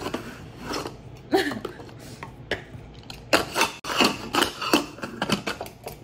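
A pressure cooker's lid scraping and clanking against the pot in a run of short, irregular scrapes and knocks as it is forced shut. The cooker is packed too full to close easily.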